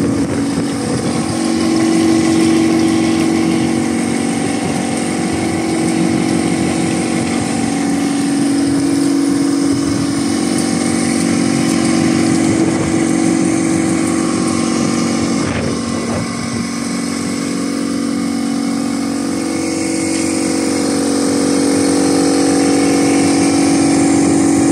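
Small gypsum plaster spraying machine running: its electric geared motor and pump give a steady mechanical hum, with a slight dip in level about two-thirds of the way through.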